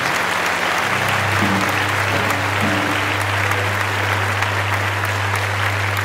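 Church congregation applauding after a praise song. From about a second in, a low steady note is held on an instrument underneath.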